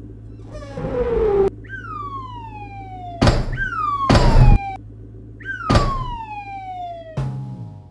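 Sound effects for an animated logo intro: a whoosh about half a second in, then three long falling tones, each gliding down over a couple of seconds, broken by several heavy thuds as the letters land, over a low steady hum.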